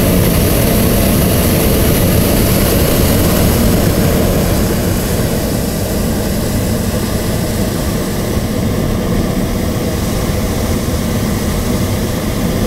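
Hot air balloon's propane burner firing in one long, loud, steady burn, easing slightly about four seconds in.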